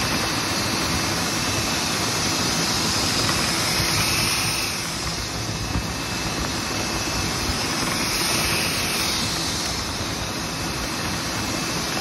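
Dryer vent cleaning air equipment running with a steady, loud rush of air through the vent duct. The air forces lint out of the wall opening, with slight swells partway through.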